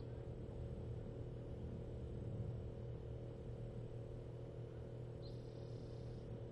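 Steady low background hum. A faint, high, rapidly pulsing chirp sounds for about a second near the end.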